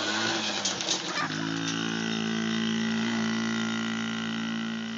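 A small mini dirt bike engine revs up with a rising pitch, with a few sharp clicks about a second in. It then settles into a steady, even run as the bike rides away, getting a little quieter near the end.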